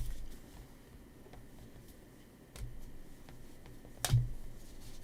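Trading cards being handled and sorted: soft rustling with a few light taps as cards are set down, the loudest about four seconds in.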